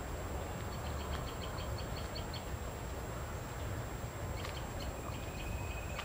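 Wild birds calling in woodland: a run of about a dozen short high notes, then a brief trill near the end, over a steady low rumble.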